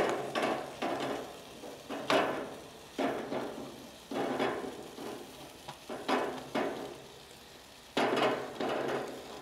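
Steak sizzling in a hot cast-iron skillet on the grill, with about a dozen irregular scrapes and knocks of a metal utensil against the pan.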